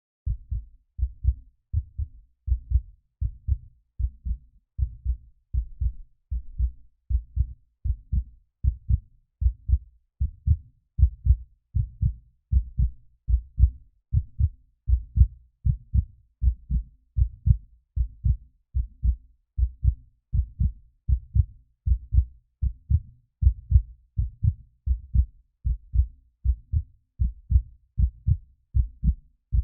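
Heartbeat, a steady lub-dub rhythm: each beat a pair of low thumps, a little more than one beat a second.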